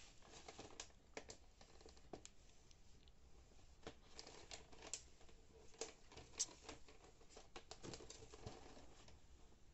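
Faint, scattered light taps and rustles of hands handling a printed cardboard heart-shaped chocolate gift box and turning it over, with one sharper tap past the middle.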